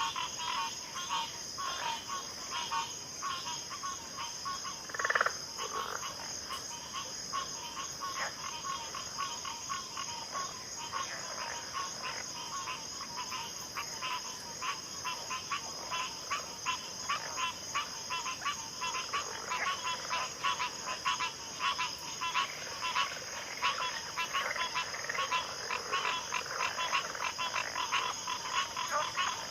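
Chorus of many frogs calling in a backwater: rapid, overlapping short clicking calls over a steady high-pitched buzz, with one louder, lower call about five seconds in.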